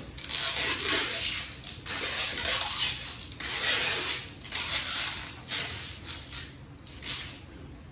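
Rustling and swishing of leafy long-stemmed roses being gathered and handled in a large bouquet, in a series of noisy surges about a second apart.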